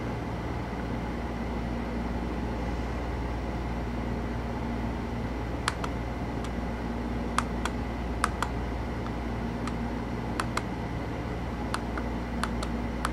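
Buttons on a Turnigy ESC program box clicking as they are pressed: a series of short, sharp clicks at irregular spacing, starting about six seconds in, over a steady background hum.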